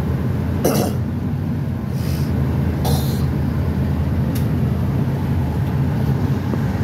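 Inside a pickup truck's cab while driving: a steady low drone of engine and road noise, with a few brief sharp noises about a second, two, three and four seconds in.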